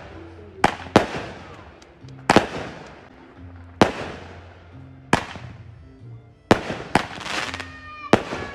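A 16-shot 200-gram firework cake firing: a sharp bang about every second and a half, seven in all, each shell burst trailing off in a short fading rush.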